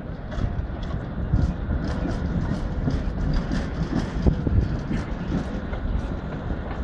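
Tram wheels rolling over the rails and crossings of a tram junction: a steady rumble with many irregular clacks and knocks.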